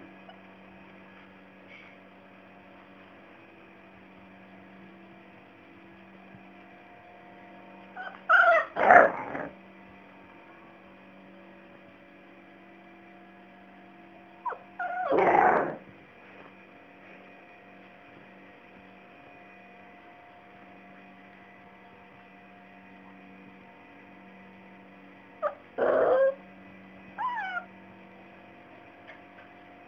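Labrador puppy vocalizing in three short bouts a few seconds apart, frustrated at being unable to get off the bed.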